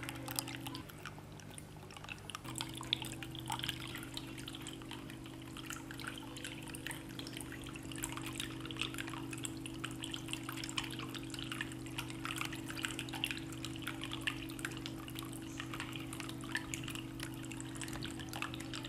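Bamboo water fountain running: water trickling from the bamboo spout and dripping and splashing in many small, quick drops, with a steady low hum underneath.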